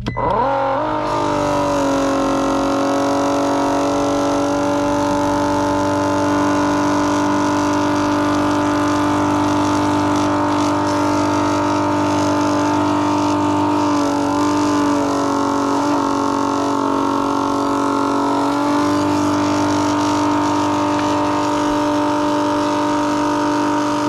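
Milwaukee cordless transfer pump motor spinning up within a second, then running with a steady whine while it pumps water out of an HVAC drain pan. Its pitch wavers briefly a little past the middle, and it cuts off suddenly at the end.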